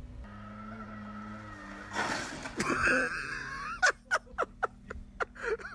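A person's voice: a short cry about two seconds in, then a fast run of short breathy bursts, about five a second, near the end.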